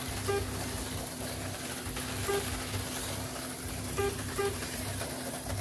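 HO-scale slot cars running around the track: a steady hissing whir of the small motors and pickup shoes on the rails. Four short electronic beeps from the lap-timing system sound over it.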